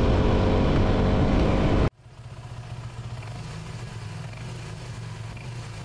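Motorcycle engine running steadily at cruising speed with heavy wind and road rush, heard from the rider's seat. About two seconds in it cuts off abruptly, leaving a quieter steady low hum.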